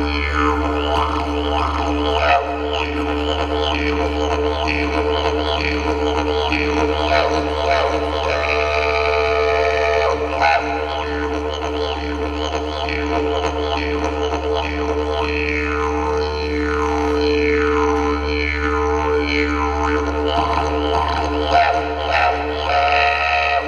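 Yidaki (didgeridoo) played as one unbroken low drone, with repeated sweeping overtones rising and falling over it as the player shapes the sound with mouth and tongue.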